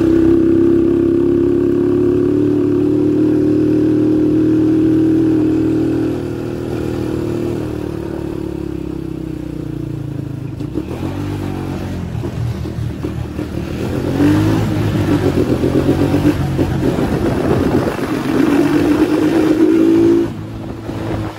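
Small motorcycle engine running at high, steady revs for about six seconds, then easing off. From about fourteen seconds in it is revved up and down several times, then drops away abruptly near the end.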